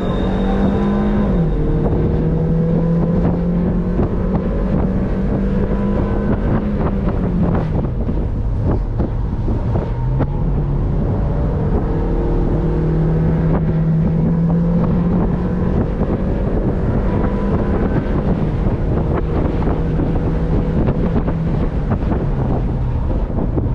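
Car engine running at steady revs, a continuous drone whose pitch steps down and back up a few times, with wind noise on the microphone.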